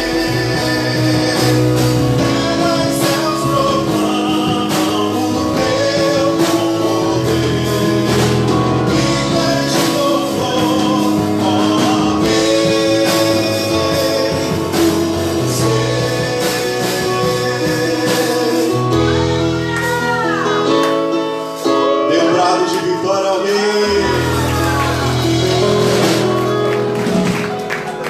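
Live worship band playing a slow praise song, with singing over it.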